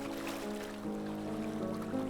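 Slow, calm instrumental relaxation music of long held notes that change every half second or so, over a faint wash of sea waves.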